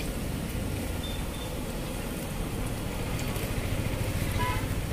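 Steady low rumble of a street-side paratha griddle stall, with a short high tone about a second in and a brief high chirp near the end.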